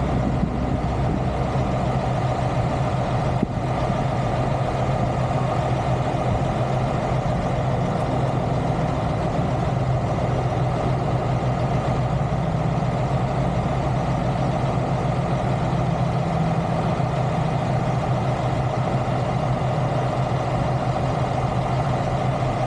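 Semi-truck diesel engine idling steadily, with one short click about three and a half seconds in.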